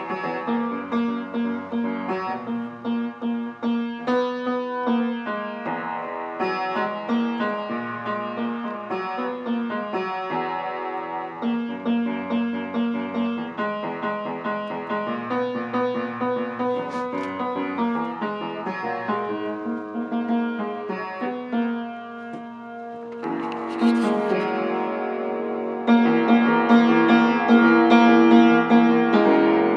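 A piano being played: a continuous run of notes, dipping briefly near the two-thirds point and then growing louder toward the end.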